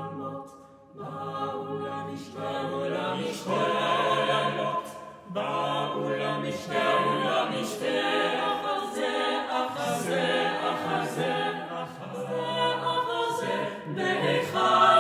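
Mixed choir of eight voices, women and men, singing unaccompanied in several parts. Sustained chords come in phrases a few seconds long with brief breaks between, growing fuller over the first few seconds.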